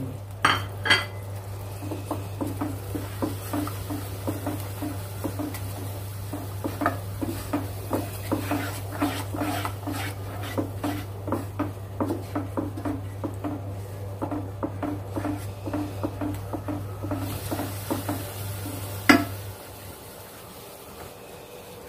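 A wooden spoon stirs spiced yogurt in a non-stick saucepan, scraping and knocking against the pot in regular strokes a few times a second. Near the end there is a single sharper knock. A steady low hum underneath stops shortly after it.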